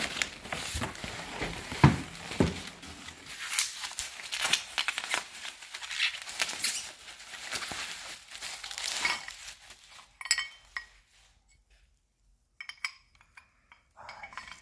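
Newspaper and plastic bubble wrap crumpling and crackling as a small cast-iron toy is unwrapped, with a couple of knocks a couple of seconds in. The rustling stops about ten seconds in, and a few light clinks follow near the end.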